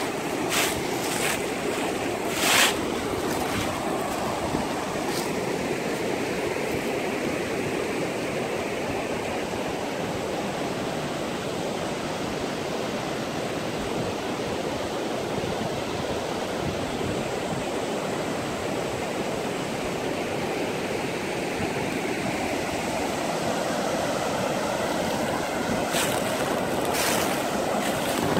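Shallow river rushing steadily over rocks and small rapids. A few short clicks sound near the start and again near the end.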